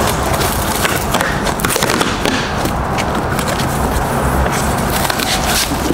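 Cardboard shipping box being pried open by hand: the lid flap scraping and rubbing against the cardboard, with scattered crackles and knocks of handling.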